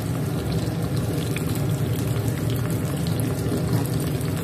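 Eggplant, garlic, shallot and tomato pieces frying in oil in a dimpled khanom krok pan, with small crackles over a steady low rush.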